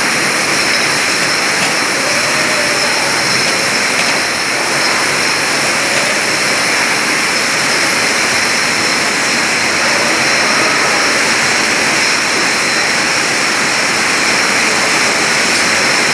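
Steady, loud machine drone of a juice-bottling line running, a dense even hiss with several steady high-pitched whines on top.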